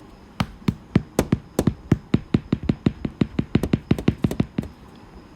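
Keyboard typing: a quick, uneven run of sharp key clicks, about five a second, lasting about four seconds and stopping near the end.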